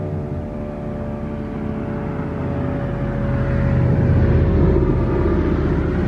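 Fedelcode Model 7 outdoor warning siren sounding its steady alert signal, a held tone that neither rises nor falls. A low rumble swells under it about halfway through.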